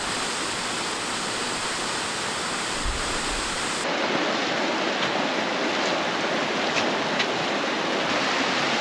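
Small desert waterfall and stream rushing over granite boulders: a steady wash of falling water.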